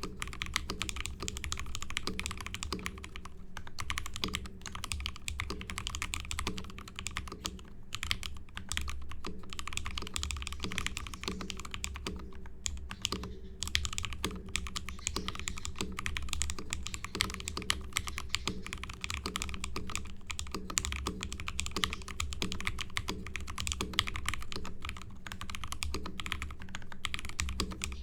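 Typing on a Lapis60 acrylic gasket-mount 60% keyboard with an acrylic plate, lubed JWICK Ultimate Black nylon-top switches and DCP keycaps: rapid, continuous keystrokes with a few brief pauses. The sound is dominated by the acrylic plate and is not very dense.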